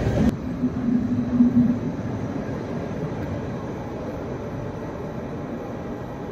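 Railway platform sound of a Dutch double-deck electric train standing alongside: a steady low hum for the first couple of seconds, then an even low rumble.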